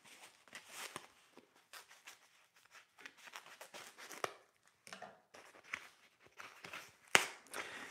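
Thin foam packing sheet being unrolled and peeled off a new handsaw: faint, irregular rustling and crinkling, with a single sharp click about seven seconds in.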